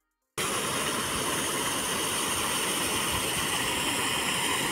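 Fish-pond aerators churning and splashing the water, a steady rushing noise with some mechanical rattle, starting abruptly about a third of a second in.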